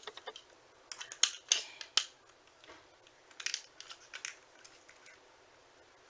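Sharp plastic clicks and short scrapes from handling a TrackMaster toy engine while fitting its battery, bunched around one to two seconds in and again around three and a half seconds.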